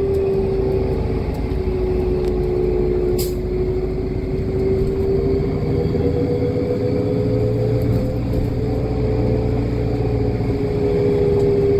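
Inside the cabin of a New Flyer D60LF articulated diesel bus on the move: steady engine drone and road noise, with a steady whine that dips and rises slightly in pitch. A single sharp click about three seconds in.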